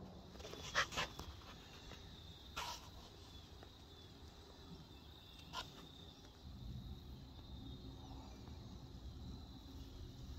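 A few short, sharp animal calls: two in quick succession about a second in, then single ones at about two and a half and five and a half seconds, over quiet outdoor background with a faint steady high tone.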